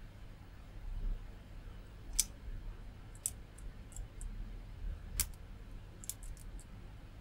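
Faint, sharp clicks of an electrolytic capacitor's metal leads being pressed against multimeter test probes to measure its capacitance. There are several clicks, the loudest about two and five seconds in and a quick cluster near six seconds, over a steady low hum.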